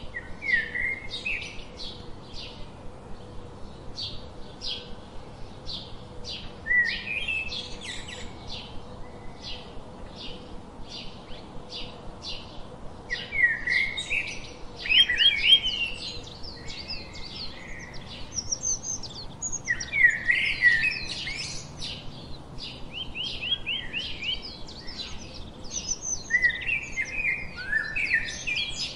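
House sparrows chirping: a steady run of short repeated chirps, with louder spells of quick chirping about halfway through and again near the end.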